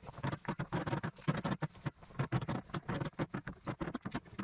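Field stones clacking and clattering against each other as they are picked from a rock pile by hand: a quick, irregular run of sharp knocks.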